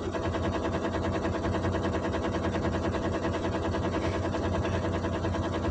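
Loaded truck's diesel engine running with a steady, fast clatter, heard from inside the cab.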